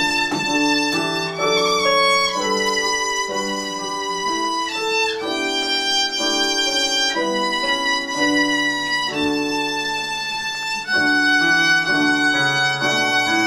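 Violin playing a Christmas carol melody in long held notes, over a lower accompaniment.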